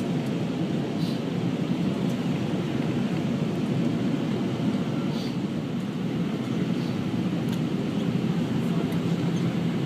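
Steady low cabin rumble of an Airbus A319 airliner in flight, from its engines and the airflow over the fuselage, heard from a passenger seat.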